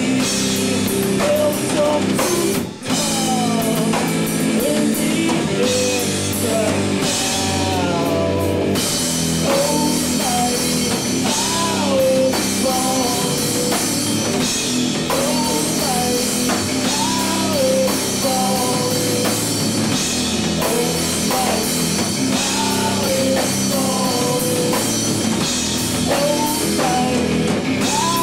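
Rock song with a drum kit, guitars and a singing voice carrying a bending melody. There is a brief drop in the music about three seconds in.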